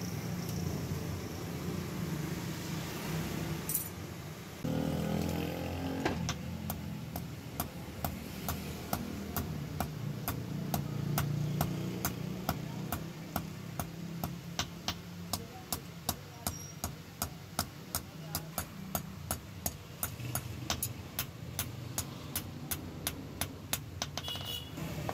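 Hand hammer striking a hot, curved banana-knife blade on a steel block anvil in a steady run of sharp blows, about two a second, starting some six seconds in. A steady low rumble runs underneath.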